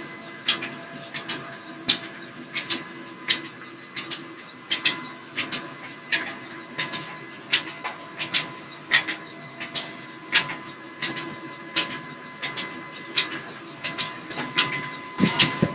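Small belt-driven mustard oil expeller running, a steady mechanical hum under a sharp, regular knock about every three-quarters of a second with lighter ticks in between. A deeper rumble joins near the end.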